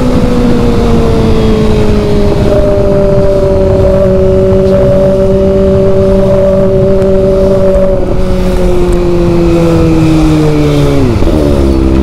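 Kawasaki ZX-25R's 250 cc inline-four with an SC Project titanium exhaust, heard from the rider's seat while the bike slows in fifth gear. The engine note eases steadily lower, then falls away sharply about eleven seconds in.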